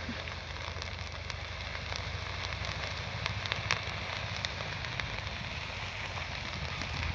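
Bonfire burning with a steady rushing hiss and scattered crackles and pops, over a low steady rumble.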